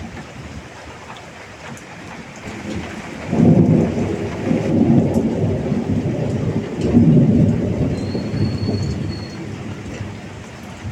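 Heavy rain falling steadily, with a long rolling rumble of thunder that breaks in suddenly about three seconds in, swells a second time midway, and dies away near the end.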